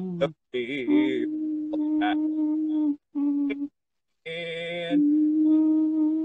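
A man humming long held notes on one steady pitch as a makeshift country backing beat, breaking off for short pauses. Twice, about half a second in and again around four seconds in, a brighter sung phrase rises over the humming.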